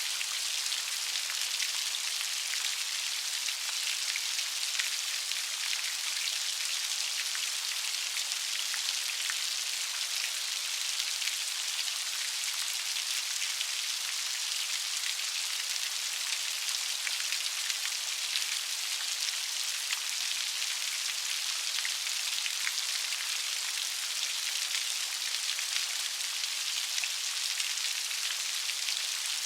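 Steady light rain: an even hiss of many small drops pattering, with faint individual drop ticks and no thunder.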